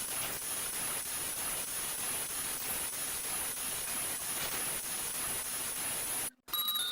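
Steady hiss of static noise with a thin, high, steady whine over it, cutting off suddenly about six seconds in. Short electronic beep tones start just before the end.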